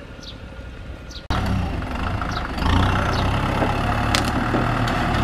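Kubota tractor diesel engines running close by, a steady low rumble that cuts in abruptly about a second in and grows louder about halfway through.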